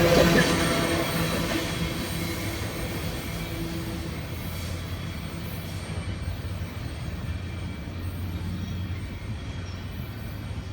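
Freight train cars rolling past, loud at first and fading away over the first couple of seconds as the train recedes, with a steady low rumble left afterwards.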